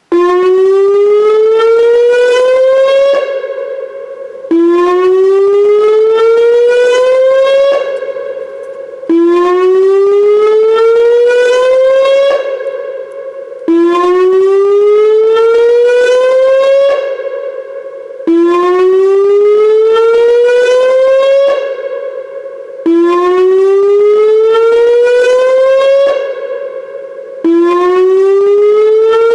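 Whelen WPS-2905 electronic outdoor warning siren sounding its whoop tone: loud rising sweeps, each climbing for about three seconds, holding briefly and then fading, repeated about every four and a half seconds, seven in all. It begins abruptly. It is the dam-evacuation flood warning tone, sounded as a test.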